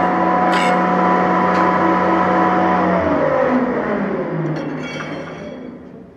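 Glass muntin-bar notching machine's cutter motor running steadily, then switched off and winding down, its pitch sliding lower and the sound fading out over about three seconds. Two short high bursts come during the steady running, about half a second and a second and a half in.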